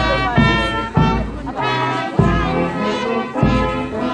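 Brass band playing a steady tune, with low notes or beats falling about once a second.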